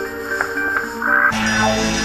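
Electronic music plays from a recording, with sustained pitched notes and a couple of short clicks. About halfway through, a deep bass layer comes in and the sound grows fuller.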